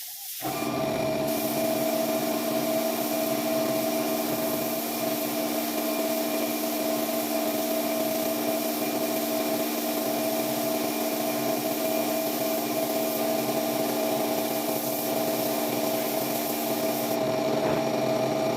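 Electric power tool, most likely a car polisher, running steadily against the painted body with a constant motor whine and a rubbing hiss; it starts about half a second in.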